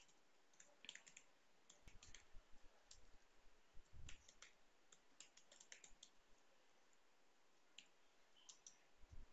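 Faint computer keyboard typing: soft key clicks in short quick runs with pauses between them.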